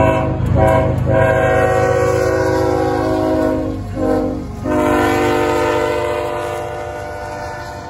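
CSX diesel freight locomotive's multi-chime air horn sounding a series of blasts, with short breaks twice in the first second and again around four seconds in. The last blast is long and fades. Under it runs the low rumble of the passing locomotives.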